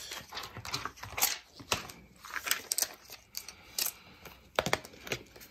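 Clear plastic stamp case and photopolymer stamps being handled: a run of irregular plastic clicks, taps and crinkles.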